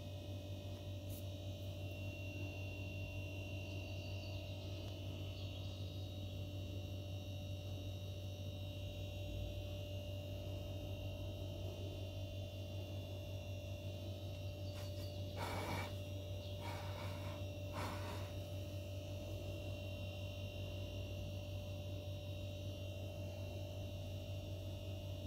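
Steady electrical hum with faint steady high tones over it, and three short, soft noises close together about two-thirds of the way through.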